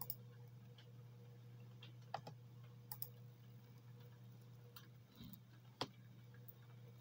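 Near silence: room tone with a steady low hum and a few scattered faint clicks, the sharpest nearly six seconds in.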